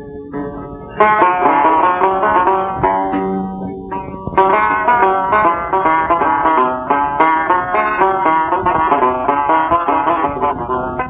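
Instrumental passage of Algerian chaabi music, led by plucked strings playing fast melodic runs, with no singing. A held, quieter passage gives way to a loud entry about a second in; the playing drops briefly near four seconds and then resumes at full strength.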